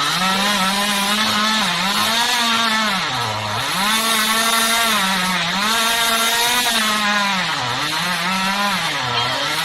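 Chainsaw running at high speed while cutting wood, its engine note sagging under load several times, most deeply about three and a half seconds in, then picking back up, over the hiss of the chain in the cut.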